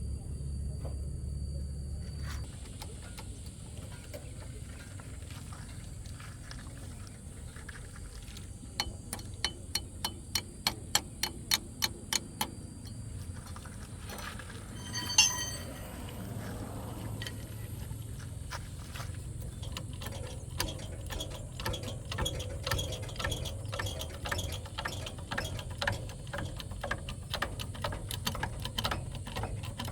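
Hand tools working on metal: a run of sharp clicks about three a second, then a single loud ringing metal clang, then fast repeated clicking like a ratchet mechanism.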